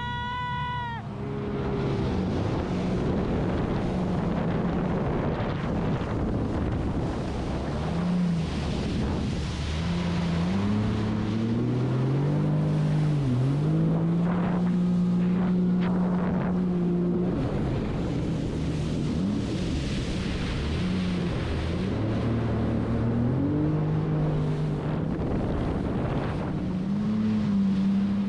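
Jet ski engine running under way, its pitch rising and falling as the throttle is worked. Water spray and wind rush over the microphone.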